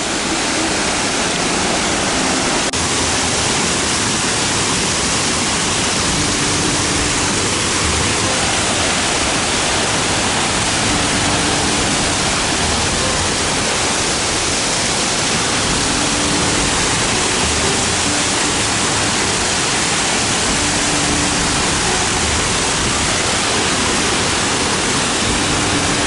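Kirihara Falls, a waterfall 40 m wide with a 12 m drop, pouring with a loud, steady rush of water.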